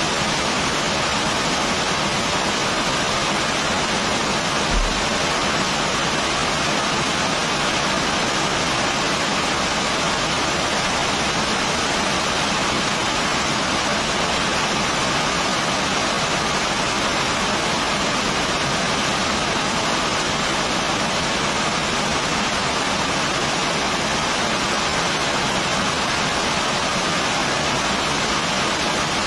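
Heavy rain falling steadily, an even unbroken hiss. There is one brief low thump about five seconds in.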